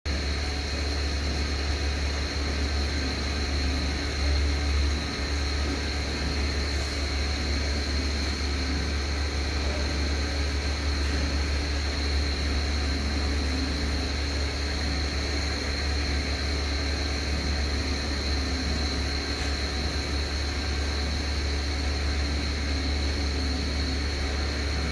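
Airflow CE200 style 5 electric fan running with bad bearings: a steady low hum with a constant high whine above it. The owner reckons it is about to fail.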